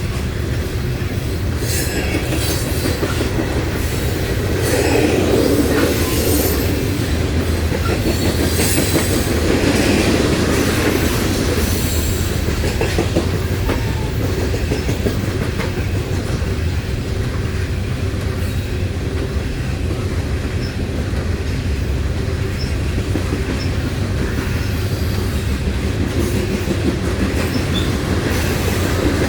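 Loaded coal hopper and gondola cars of a freight train rolling past in a steady, heavy rumble, with the clickety-clack of wheels over rail joints and brief high wheel squeals.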